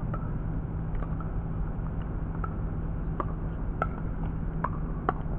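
Pickleball paddles striking a plastic ball, a sharp pop about seven times at uneven intervals with the loudest near the end, over a steady low rumble.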